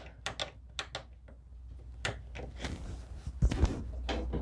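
Clicks and knocks from handling an old table saw that will not start, with a couple of heavier thumps about three and a half seconds in, over a low steady hum.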